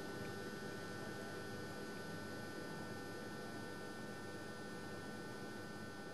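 Steady hiss with a constant faint high whine and low hum, and no distinct sounds: recording noise and room tone.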